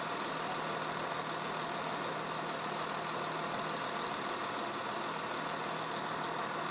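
Steady drone of a diesel HST (InterCity 125) power car engine running at a distance, an even hum with no change in level.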